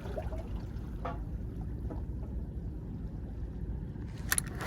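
Steady low rumble of wind and sea water at the shoreline, with a faint click about a second in and a sharper pair of clicks near the end.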